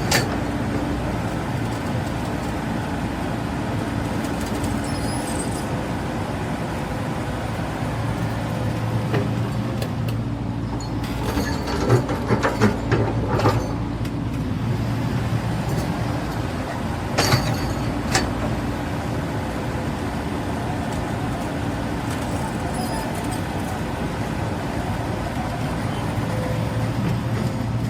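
Caterpillar 395 excavator's diesel engine running steadily, with a few sharp metallic clanks about twelve and seventeen seconds in.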